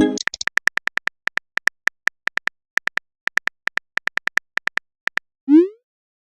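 Texting-app sound effects: a short chime fades at the start, then quick, irregular keyboard tap clicks, about four a second, for about five seconds, as a message is typed, ending in a short rising pop as the message is sent.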